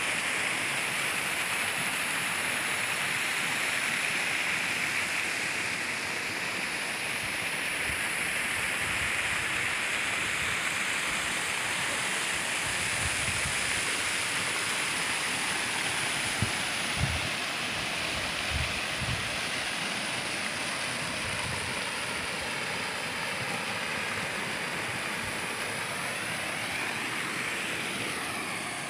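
Steady rush of water from a waterfall and a swollen, muddy river pouring over rocks, with a few short low thumps past the middle.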